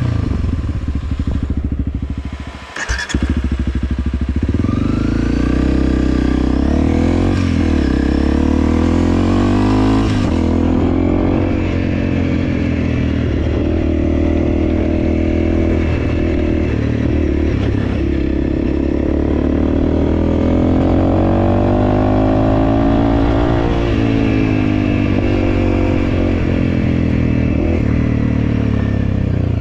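Honda CRF300L's single-cylinder four-stroke engine running under way, its pitch rising and falling as it revs through the gears. About three seconds in the engine sound dips briefly and a sharp knock is heard.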